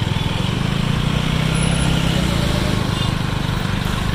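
Bus engine idling steadily, a low even drone with a fast regular pulse.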